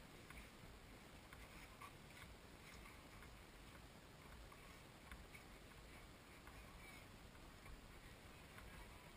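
Near silence: a faint even hiss with scattered faint ticks.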